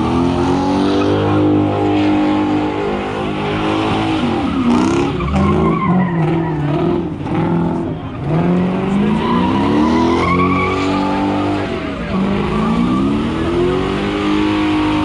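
A car doing donuts: its engine revs hard, climbing and dropping back every few seconds, while the tyres squeal and skid.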